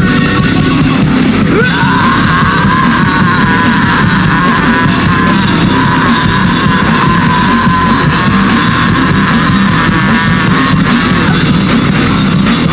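Live rock band playing loudly, an instrumental passage with electric guitar over a drum kit.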